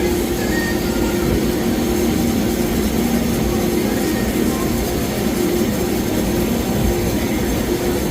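CNC lathe running during machining: a steady mechanical hum with a constant hiss.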